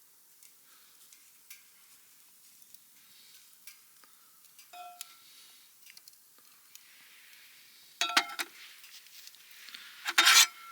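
Metal utensils scraping and clinking against camp cookware, with two louder clattering knocks about eight and ten seconds in that leave a short metallic ring.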